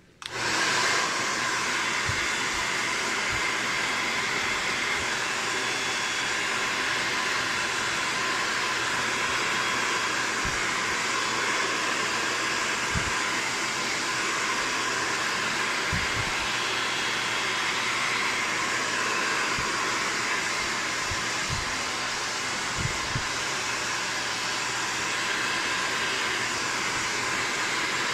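Hand-held hair dryer switching on and then blowing steadily, a rush of air with a faint whine in it. A few soft low thumps now and then.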